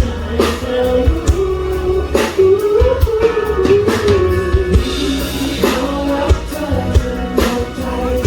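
Live band playing amplified over a PA: a sung melody with long held notes over a drum kit and bass, with drum hits at a steady beat.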